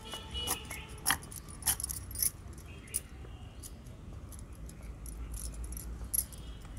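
Bangles on both wrists clinking and jingling in irregular clicks with short ringing tones as hands press and roll dough on a wooden board; the sharpest clink comes about a second in.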